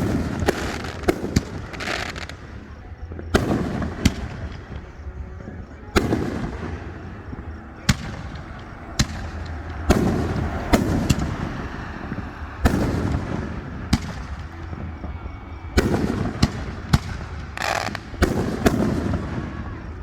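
Fireworks display: aerial shells bursting in sharp bangs at irregular intervals, several in quick succession at times, each followed by a low rumbling echo.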